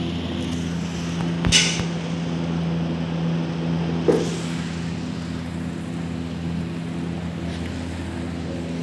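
A steady low machine hum made of a few fixed tones, broken by two short knocks, one about a second and a half in and one about four seconds in.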